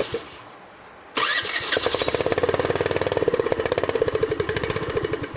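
Duke motorcycle engine sound starting up about a second in, then running with a rapid, even beat, with a faint steady high tone behind it.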